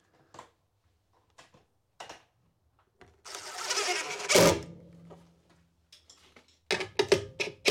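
Cordless driver running in one burst of about a second and a half, driving a fixing screw through a metal socket back box into the wall, with the motor trailing off after it. A few sharp clicks and knocks follow near the end.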